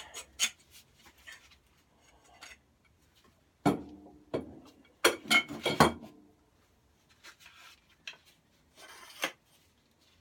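Small metal mower parts being handled and put down, clinking and knocking against each other and the bench, with the loudest clatter about four to six seconds in.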